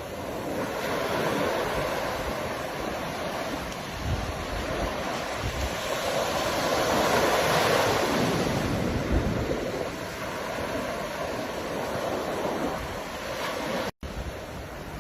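Ocean surf washing in continuously, with a larger wave swelling and breaking around the middle before easing off. The sound cuts out for an instant near the end.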